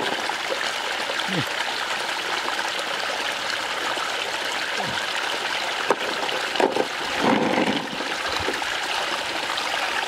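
Shallow water flowing and trickling steadily, with a brief slosh about seven seconds in as hands work in the water.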